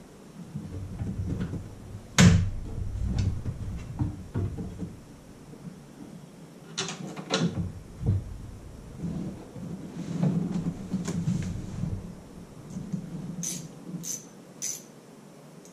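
Irregular knocks, clicks and handling noise from parts being fitted by hand at a bass boat's fiberglass console. There is a louder knock about two seconds in, and three sharp clicks near the end.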